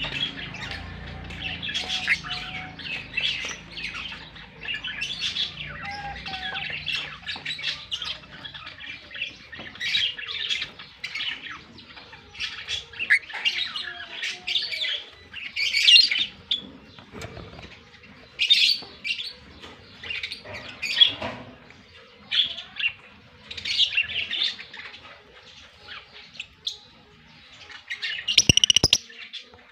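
Pet African lovebirds chirping: a continuous, rapid stream of short, sharp, high calls, some much louder than others.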